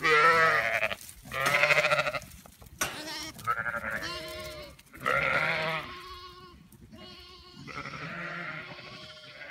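Zwartbles sheep bleating as the flock runs in: about five loud, wavering calls in quick succession with short gaps between them.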